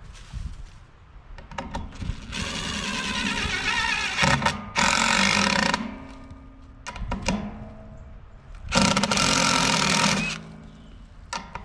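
Cordless drill driving lag screws through a metal post-anchor bracket into a wooden 4x4 post. The motor runs in bursts: one from about two seconds in to nearly six seconds, broken briefly in the middle, and another about nine seconds in, with a few short clicks between.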